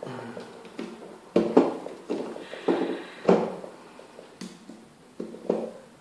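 Irregular sharp metallic taps and clicks as tools work at a Securit five-pin rim cylinder, prying off its retaining clip.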